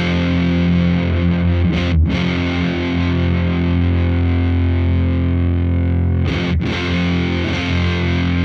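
Electric guitar through a FuzzHugger FX Lab Ratchet fuzz pedal and a Laney VC30 amp, strummed chords held and ringing out, with its Ratch knob turned down for a textured, gated fuzz. The sound cuts off sharply for a moment between chords, about two seconds in and again about six and a half seconds in.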